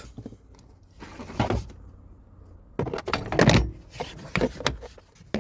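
Plastic steering column trim panel being pushed and snapped into place: a few short scraping knocks, then several sharp clicks near the end.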